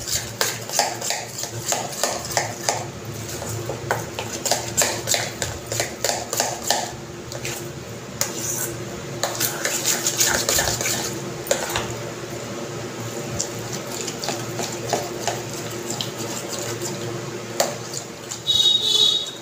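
Steel spoon beating hung curd and powdered sugar in a stainless steel bowl: rhythmic scraping and clinking of spoon on bowl, about two to three strokes a second, as the curd is whipped until smooth like cream. A short, loud, high-pitched chirp sounds near the end.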